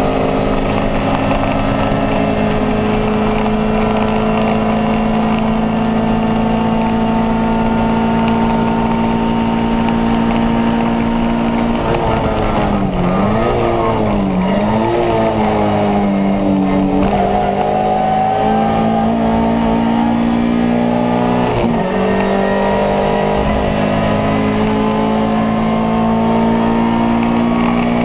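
Alfa Romeo 146 2.0 Twin Spark four-cylinder engine at full racing revs, heard from inside the stripped cabin. Revs hold steady and high, then dip and rise twice in quick succession, climb again and dip briefly once near the three-quarter mark.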